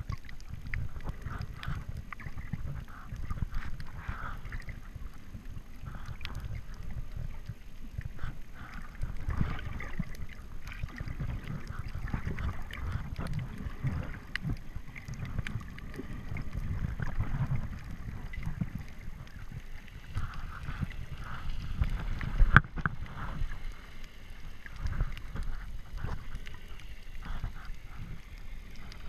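Muffled underwater sound of moving water just below the surface: a constant low churning rumble with scattered faint clicks and gurgles. One sharp knock a little past two-thirds of the way through.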